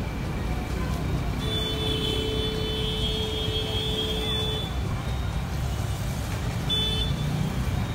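Traffic noise in a road jam: a steady low rumble of idling and crawling vehicle engines. About a second and a half in, a steady high-pitched tone sounds for about three seconds, and a brief one comes near the end.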